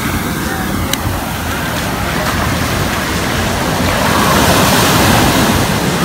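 Ocean surf washing and foaming around the feet in the shallows, with wind buffeting the microphone as a low rumble. The rush grows louder after about four seconds as a wave comes in.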